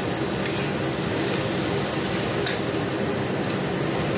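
Bell peppers and mushrooms sizzling steadily in a steel wok, with two light clicks of the metal spatula against the pan.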